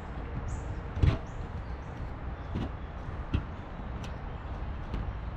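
Small birds giving short high chirps in the first second, over a steady low rumble. Two dull thumps come about one and three seconds in.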